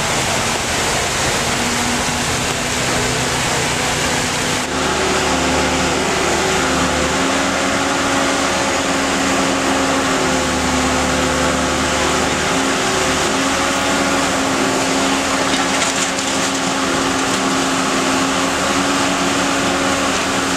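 Steady rushing of fire hose streams spraying a burning building; after a cut about five seconds in, a backhoe loader's diesel engine running steadily, its low rumble rising and falling as it works.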